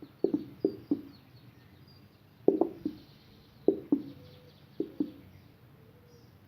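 Short hollow knocks and plops, mostly in pairs, as liquid soap is poured out of a plastic bottle.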